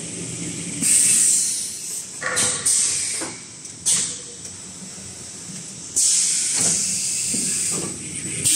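Toilet-roll and kitchen-towel paper converting machine running with a low hum, broken by repeated sudden bursts of hissing air. The bursts come about one, two and a half and four seconds in, and the longest starts about six seconds in and lasts over a second.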